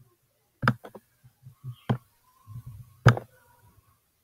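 Computer mouse clicking: three sharp clicks about a second apart, with a few fainter ones between them.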